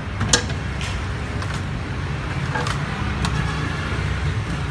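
Several sharp clicks and taps as a laptop hard disk and its connector are handled and plugged into a laptop, the loudest about a third of a second in. A steady low rumble like road traffic runs underneath.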